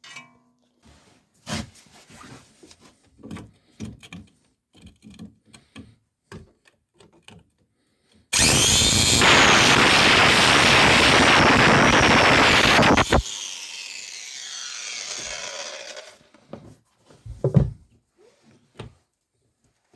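Angle grinder cutting through a seized anti-roll bar link, its stripped nut impossible to undo. A few light tool knocks come first; then, about eight seconds in, the grinder runs loud and steady for about five seconds, stops cutting suddenly and winds down with a falling whine. A couple of knocks follow near the end.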